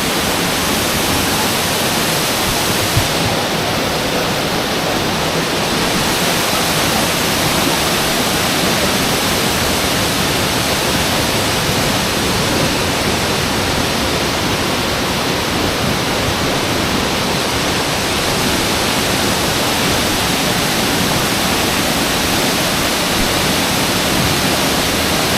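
Dry Falls, a 75-foot waterfall, running with a loud, steady rush of falling water.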